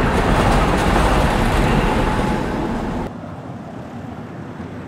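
Street traffic: a steady, loud rumble of a large vehicle passing close, with road noise. About three seconds in it cuts off abruptly, leaving a quieter street ambience.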